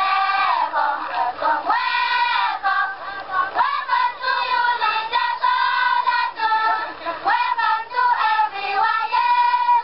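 Group of schoolchildren singing a song together in high voices, phrase after phrase.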